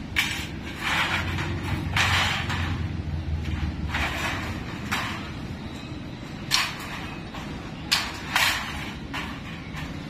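Thin sheet metal being cut with tin snips and handled, the sheet rattling and flexing: a series of short, sharp, crisp bursts a second or two apart.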